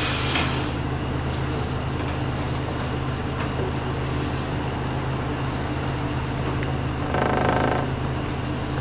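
City bus engine running steadily, heard from inside the passenger cabin, with a short air hiss at the start and a brief higher-pitched sound about seven seconds in.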